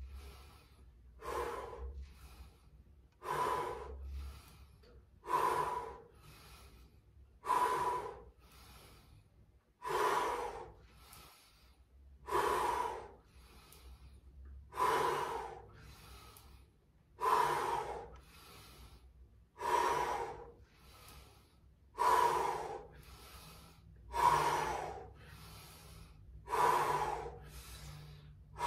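A person breathing hard in rhythm with fast squats: a loud, forceful exhale about every two seconds, each followed by a softer breath, about a dozen times.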